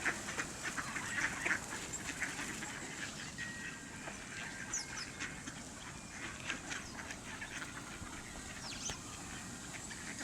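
A flock of mallard ducks quacking, many short calls scattered throughout, with a few brief thin whistles among them.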